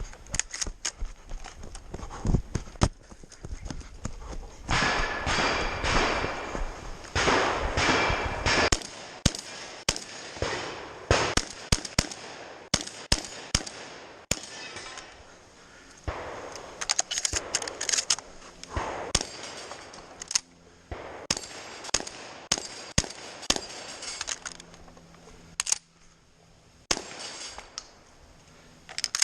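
Competition shotgun firing shot after shot in quick runs with short pauses between them.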